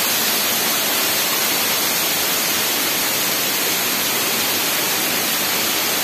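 Waterfall rushing: a steady, even hiss of falling water that does not change.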